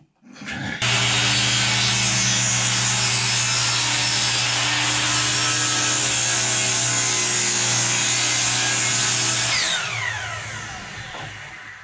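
Electric power saw cutting a wooden rafter board at an angle. The motor spins up, runs steadily with the blade in the wood for about nine seconds, then winds down with a falling whine.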